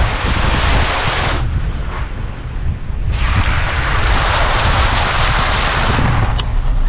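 Wind rushing over the microphone in two long surges, over the steady low rumble of a moving pickup truck.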